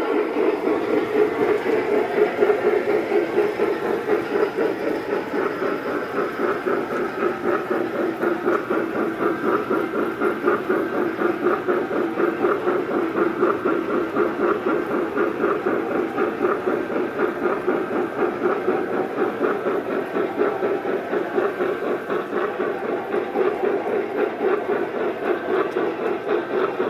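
Lionel O-gauge model of a Rio Grande 4-6-6-4 Challenger steam locomotive running under load with a coal train. Its sound system gives a steady, rapid chuff over the running noise of the locomotive and cars on the three-rail track.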